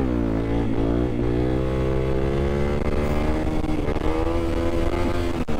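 2015 Honda CRF250L's single-cylinder four-stroke engine pulling hard in a wheelie, its pitch climbing steadily as the revs rise toward the red line, then cutting off abruptly near the end.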